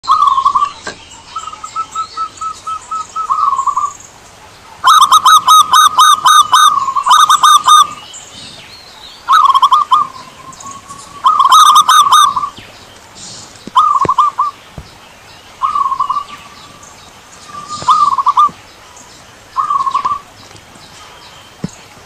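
Zebra dove (perkutut) cooing: a string of rapid, trilling coo phrases, about nine in all, a second or two apart, with the longest and loudest run about five seconds in.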